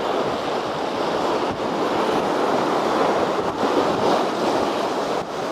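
Sea surf washing against a rocky shoreline, a steady rush, with strong wind buffeting the microphone.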